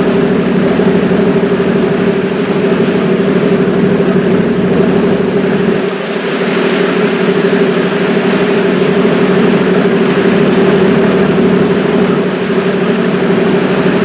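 A river cruise ship's engine running steadily underway, a constant low hum that holds one pitch, over a hiss of water and air.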